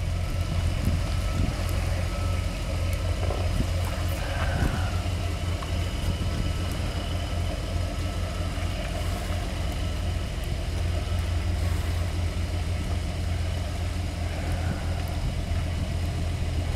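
A 4x4 off-road truck's engine idling steadily, a low even hum with no revving.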